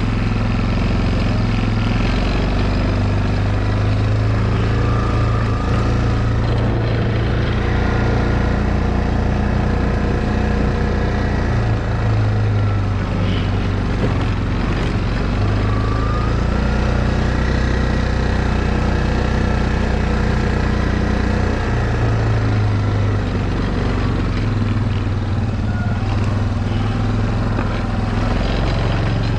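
ATV engine running steadily while the quad is ridden along a trail, its level swelling and easing a little every few seconds with the throttle.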